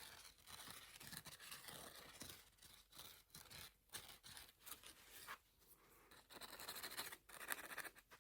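Makeup brush bristles brushing and scrubbing across a rough blue sponge, soft scratchy strokes repeating with short pauses between them.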